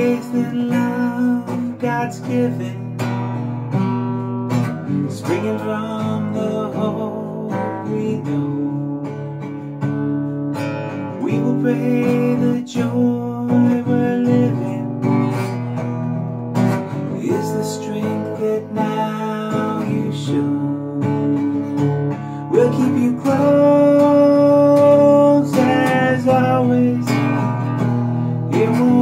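Acoustic guitar strummed and picked in a steady song accompaniment, with a man singing along.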